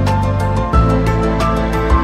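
Background music with sustained chords over a steady bass and occasional low drum hits.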